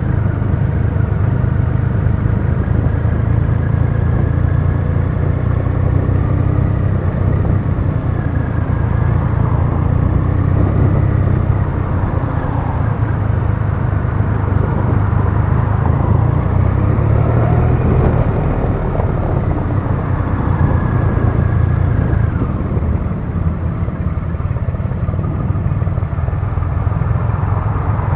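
Triumph Rocket 3 Classic's three-cylinder engine running steadily at low riding speed, heard from on the bike, with wind and road noise.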